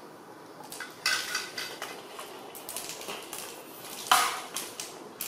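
Hard plastic toys knocking and clattering on a tiled floor as a baby macaque handles and drops them: a quick run of knocks just after a second in, and the loudest single knock about four seconds in.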